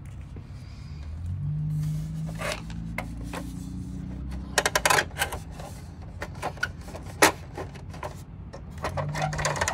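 Hard plastic clicks, knocks and rubbing as a vintage Kenner Slave I toy ship is gripped, turned and its parts moved by hand, over a low steady hum.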